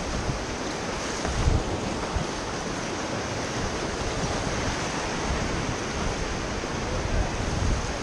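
Whitewater rapids rushing steadily around an inflatable raft, with a few low buffets of wind on the microphone.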